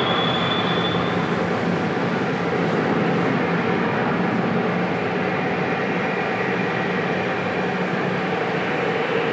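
Jet aircraft engines at takeoff power, a steady loud rush of jet noise. A high turbine whine that has been climbing in pitch levels off and fades about a second in.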